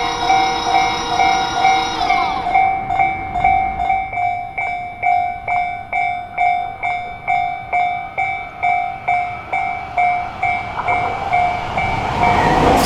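Japanese railway level crossing warning bell ringing, a repeating electronic two-tone ding about twice a second. A train horn sounds over it and stops about two seconds in. Near the end the rumble of an approaching train starts to rise under the bell.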